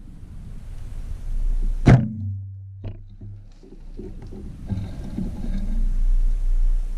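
Low rumble of wind and handling on a handheld camera's microphone while walking through bush, with a single sharp knock about two seconds in and irregular rustling footsteps in leaf litter and twigs in the second half.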